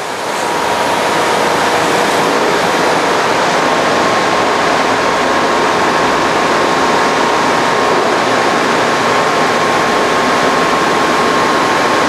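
Forrest Model 236 vertical bandsaw, its 3/4-inch, 3-teeth-per-inch blade running at 3,000 feet per minute, cutting through 2-inch phenolic foam with a thin fibreglass facing. It makes a loud, even hiss with a faint steady whine, swelling over the first second as the blade enters the foam and then holding steady. The foam offers no resistance at all.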